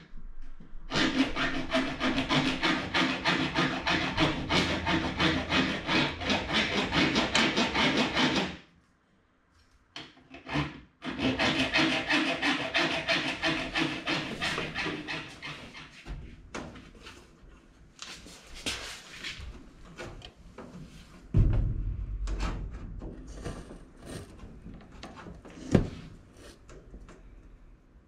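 Hand file scraping back and forth on an aluminum part clamped in a bench vise, in steady strokes for about eight seconds, a short pause, then a few seconds more of filing. After that come softer handling sounds and a few sharp knocks as the part is fitted into place.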